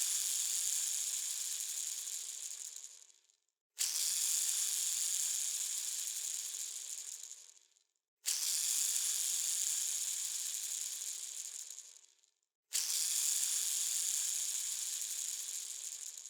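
A bearing spun again and again, making a high whirring hiss. Each spin starts suddenly and fades away over three to four seconds as the bearing coasts to a stop, with a new spin about every four and a half seconds.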